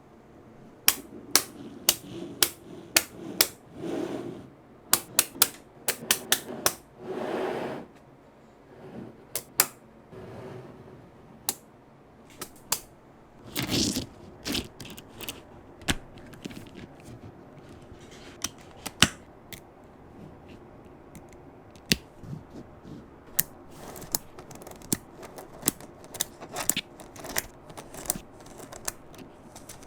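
Small magnetic balls clicking sharply together as they are snapped into place, in irregular runs of clicks. A few longer rustling or squishing swells come between them.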